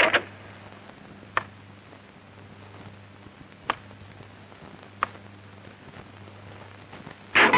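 Faint steady hum on an old film soundtrack, broken by three short sharp clicks spaced a second or more apart; music starts loudly near the end.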